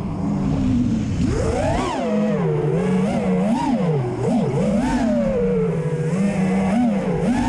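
Realacc Real5 five-inch FPV racing quadcopter's brushless motors and propellers whining in flight, the pitch swooping up and down again and again as the throttle is punched and eased through turns and flips.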